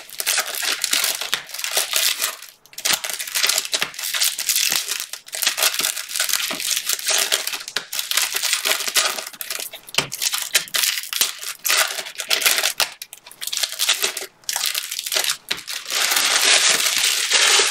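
A stack of Bowman baseball cards handled and flipped through by hand: quick, irregular rustles, flicks and slaps of stiff card stock, with a steadier rustle near the end.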